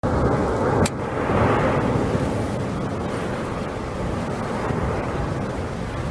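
Steady, deep rumble from the Cumbre Vieja volcanic eruption. A short click and a slight drop in level come about a second in.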